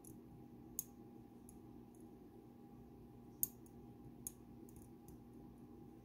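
Small, sharp clicks of a hook pick working the pins inside a Dom Sigma pin-tumbler lock cylinder, three of them louder: about a second in, past the middle, and shortly after, with fainter ticks between, over a low steady hum.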